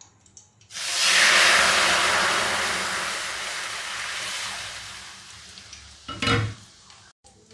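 Hot milk poured into a hot kadhai just drained of frying ghee, sizzling loudly the moment it hits the pan and dying down over several seconds as the milk settles and bubbles at the edges. A short knock about six seconds in.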